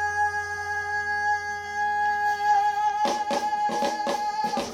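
Live soul band music: one long note held steady, then a run of drum hits in the last second and a half or so.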